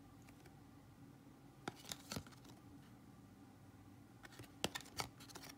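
Faint handling sounds of a trading card being held and turned over in the fingers: a few light clicks and taps, grouped about two seconds in and again near the end, over quiet room tone.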